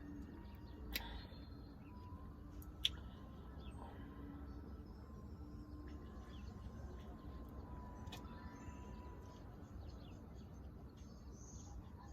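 Quiet room noise with a faint steady hum and a few brief clicks, the sharpest about three seconds in.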